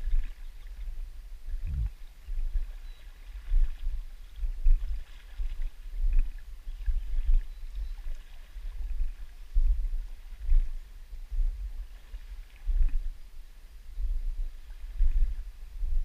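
Water sloshing close to the camera in a shallow river, in irregular low thumps about once a second, over the faint rush of the current.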